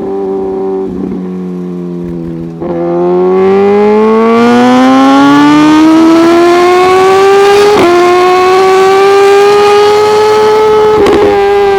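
Suzuki GSX-R1000R inline-four on an M4 full exhaust system with no ECU tune, cruising, then opened up hard about two and a half seconds in. The exhaust note rises steadily under acceleration and is broken twice by short quickshifter upshifts, where the pitch steps down slightly.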